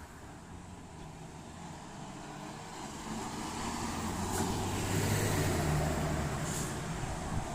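Road traffic: a motor vehicle's engine rumble that grows louder a few seconds in, then eases slightly near the end, as a vehicle drives past or pulls away.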